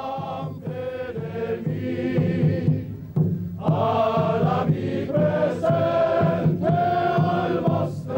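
A group of men singing a chant in unison, in phrases with long held notes and short breaks between them.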